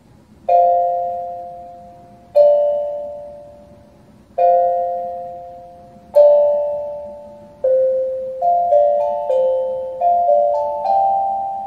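Steel tongue drum played with mallets: single struck notes about two seconds apart, each ringing and slowly fading, then a quicker run of notes in the second half. The ringing cuts off suddenly at the end.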